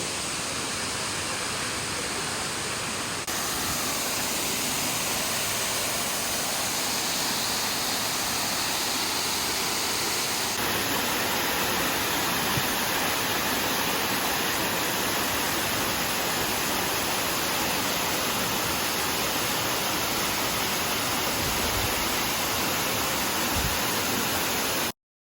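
Steady rush of a waterfall cascading down a chain of rock pools, a continuous noise of falling water that cuts off abruptly near the end.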